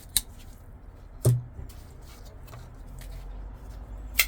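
Folding knives being handled and set down on a hard surface: three sharp clicks spread over a few seconds, the second with a dull knock.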